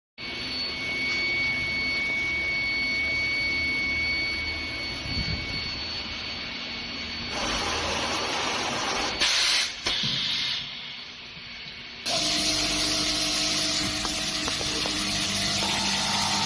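CNC automatic pipe threading machine running while machining a PVC pipe, a continuous hissing mechanical noise. A thin high whine sounds over the first few seconds, and the noise changes abruptly about seven and twelve seconds in.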